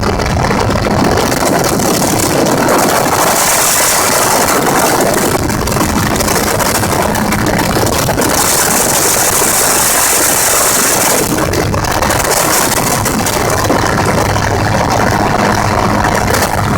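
Gyrocopter engine and pusher propeller running steadily in flight, heard on board with wind noise, which rises into a louder hiss twice.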